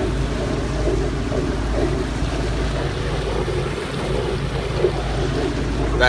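A 1981 C&C 36 sailboat under way on choppy water: a steady rush of water and wind, with a low, even hum underneath.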